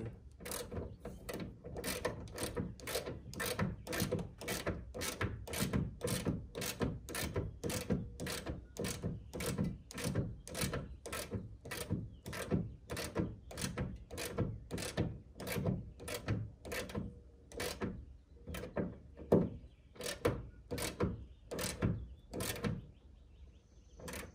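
A 10 mm ratchet wrench clicking in a steady rhythm, about three clicks a second, as a nut is run onto the hood strut-support stud. The clicking stops near the end.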